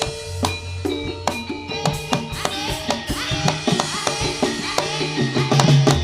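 Live East Javanese jaranan senterewe music: drums beating a busy rhythm over sustained melodic instruments, some notes sliding in pitch.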